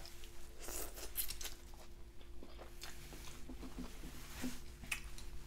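A person chewing a mouthful of pho close to the microphone, with scattered small wet mouth clicks and smacks.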